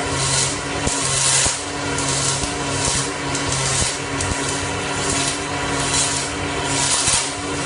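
MIG welding arc on stainless steel: a continuous crackling hiss that swells and eases roughly once a second, over a low steady hum.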